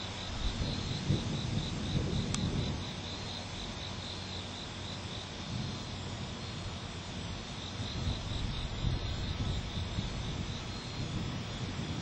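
Night insects chirping in a steady pulsing rhythm, about three or four pulses a second, over a low rumble that swells and fades.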